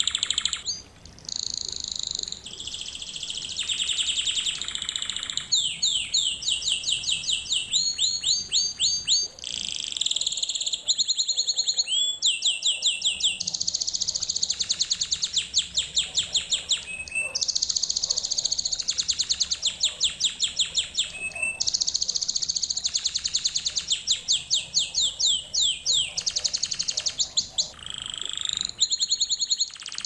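Domestic canary singing a long continuous song: high-pitched rolls of rapidly repeated notes, the pattern switching to a new trill every second or two.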